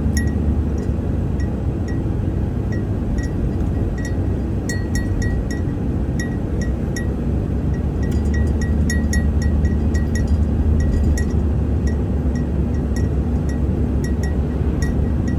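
Steady road and engine rumble heard inside a moving vehicle, with irregular light metallic clinking, like a small object rattling in the cabin.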